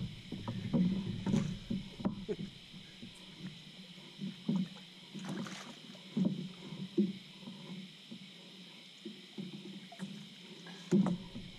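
Scattered knocks and clunks on a small boat with light water movement while a hooked catfish is brought alongside for netting, over a steady high-pitched hiss.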